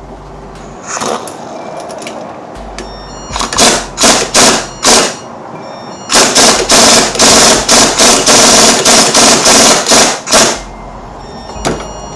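Pneumatic air tool run in bursts: four short loud blasts, then a longer run of rapid hammering pulses lasting about four seconds, as it works on a seized drive-shaft joint.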